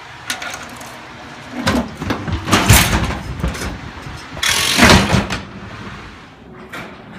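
Clattering and rumbling of freight being unloaded from a semi-trailer, with boxes on a metal conveyor over a diamond-plate floor. It comes in two loud surges, about two and five seconds in.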